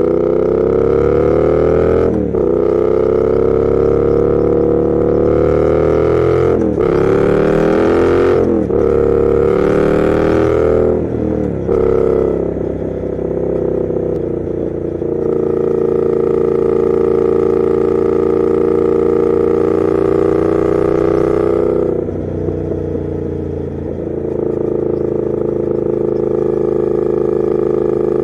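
Triumph Thruxton RS 1200 cc parallel-twin engine through a Weslake exhaust, accelerating up through the gears. The note climbs and drops sharply at each of four upshifts, about two, seven, nine and eleven seconds in. It then settles to a steady cruise, dips briefly a little past halfway through the second half, and holds steady again.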